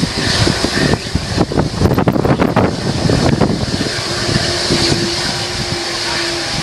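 Jet blast from a McDonnell Douglas MD-11F's three jet engines, heard from behind the aircraft as a loud rushing roar, with the blast gusting on the microphone. A steady hum joins in about four seconds in.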